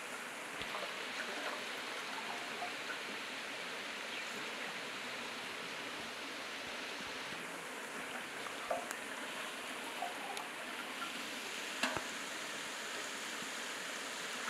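Steady rush of a nearby stream, with a few faint splashes and knocks from hands working in a pot of water.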